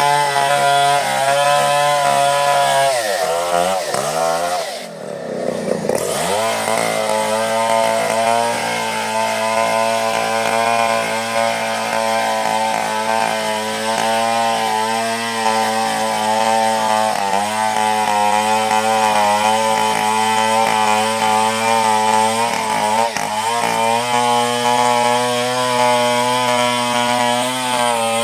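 Stihl chainsaw running at high revs, sawing a coconut palm log lengthwise into beams. About three seconds in the engine note drops and climbs back, then it holds steady under load.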